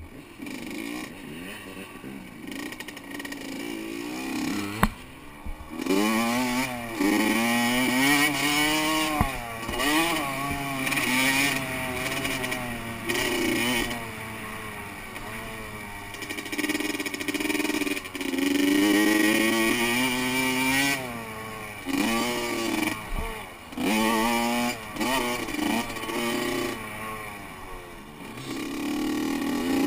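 Honda CR85 two-stroke dirt bike engine, heard from the rider's helmet: it runs lightly at first, then from about six seconds in revs up and drops again and again as the throttle is opened, shifted and backed off. A single sharp knock comes about five seconds in.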